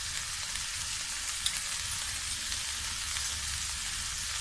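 Hot oil sizzling and crackling steadily in a frying pan around sautéed garlic-ginger paste and heaps of ground spices, with one small click about a second and a half in.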